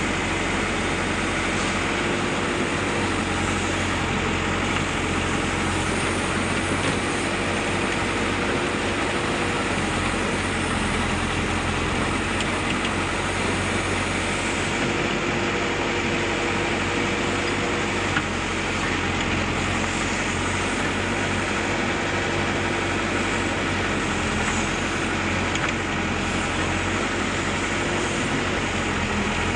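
Backhoe loader's diesel engine running steadily as the machine works soil, its note shifting slightly now and then.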